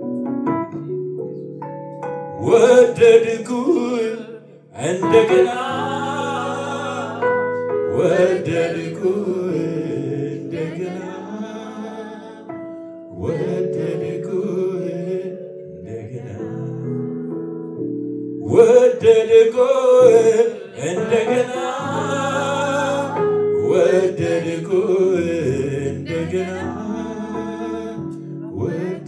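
Amharic gospel worship song: a man sings into a microphone in phrases with short breaks, over sustained keyboard chords.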